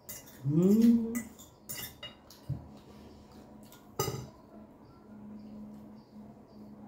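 Metal forks and knives clinking and scraping against glass plates during eating, in scattered sharp clicks, the sharpest about four seconds in. About half a second in, a short rising hum from a voice, the loudest sound.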